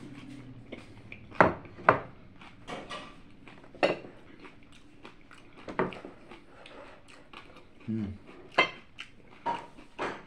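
A ceramic plate and plastic utensil being handled while eating, giving scattered sharp clicks and taps a second or two apart, with a short low hum from the eater about eight seconds in.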